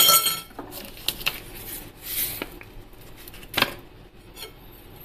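Metal spoon clinking and scraping against a ceramic plate while stirring sesame seeds with sugar: one loud ringing clink at the start, then scattered lighter taps over a soft rustle of the seeds.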